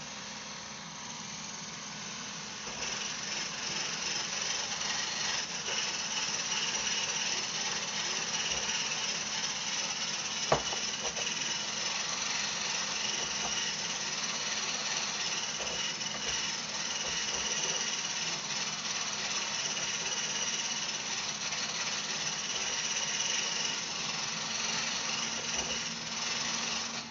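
Handheld stick (immersion) blender running steadily in a tall cup, whipping milk, brewed coffee and vanilla into a frothy whipped coffee. The motor hum grows a little louder a few seconds in, and there is one sharp knock about ten seconds in.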